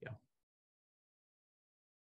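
Near silence: the end of a spoken word at the very start, then dead silence.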